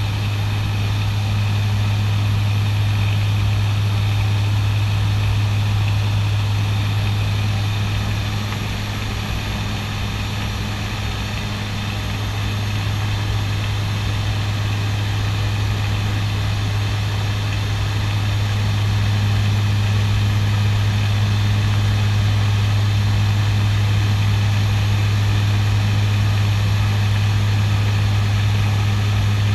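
Cockpit drone of a CASA C-212-200 Aviocar in flight: its twin Garrett TPE331 turboprops and propellers give a steady low hum. It eases off slightly about ten seconds in and grows a little louder again later.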